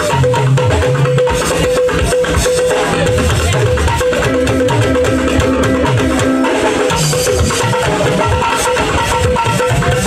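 Live praise music from a church band: drums and percussion keep a steady beat over bass and guitar, with held keyboard notes.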